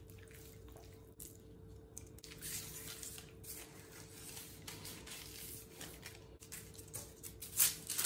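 Hands patting and rubbing a dry spice rub into an oiled raw beef brisket on parchment paper: faint, soft squishing and rustling strokes, a few louder ones near the end.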